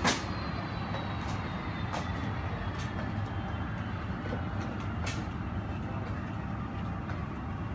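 Airport terminal ambience: a steady low rumble, with a few sharp clicks about two and five seconds in.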